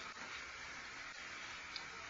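Faint room tone with a steady hiss, and one small tick near the end.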